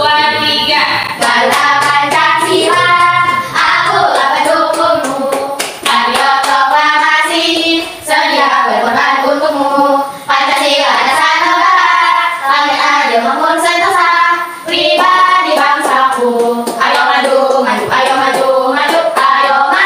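A small group of women singing a song together, with hand claps through it.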